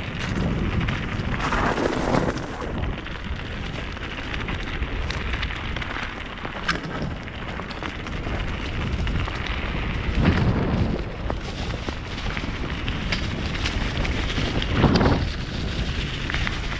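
Mountain bike rolling fast down a rough trail: wind rushing over the camera microphone and tyres rumbling on the ground. Sharp clicks and rattles come from the bike, with a few louder surges, the strongest about ten and fifteen seconds in.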